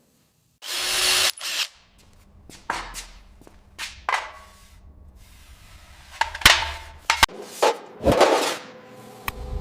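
Workshop tool sounds: a short burst of hiss about half a second in, then scattered clicks and knocks with a sharp knock partway through, and another burst of hiss near the end.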